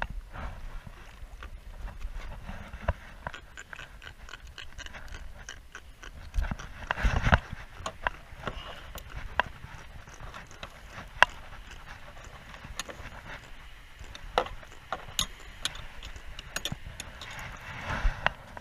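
Irregular light knocks and clicks from a plastic fishing kayak and the gear on it as it rocks on the water, over a low rumble. The knocks bunch up about seven seconds in and again near the end.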